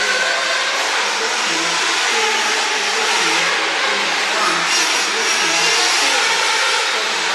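Radio-controlled off-road race cars running on the track, their motors whining and revving up and down in a steady, continuous din.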